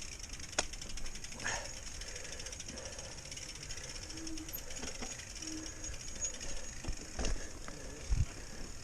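Mountain bike rolling over rough ground: rapid ticking and rattling over tyre noise, with a few sharp knocks.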